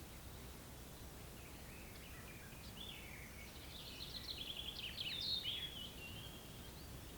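A songbird singing one varied phrase of chirps, pitch sweeps and quick trills, starting about two seconds in, peaking a little past the middle and ending shortly before the close. Underneath runs a steady low background rumble.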